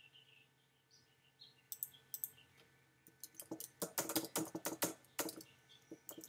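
Typing on a computer keyboard: a few separate keystrokes, then a quick run of keystrokes a few seconds in as a search is typed.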